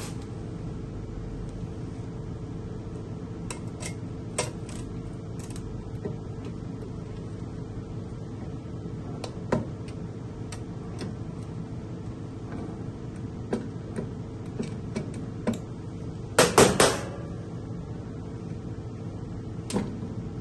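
Metal clicks and knocks as the waffle maker's lower plate assembly and its fittings are handled, scattered through, with a quick cluster of louder clacks about sixteen seconds in. A steady low hum runs underneath.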